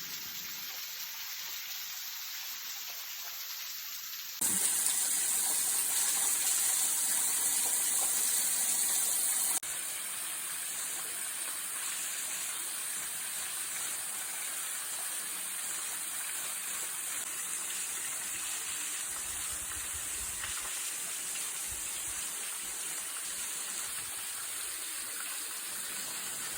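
Water of a waterfall rushing, a steady noise; it gets louder about four seconds in and drops back somewhat about five seconds later.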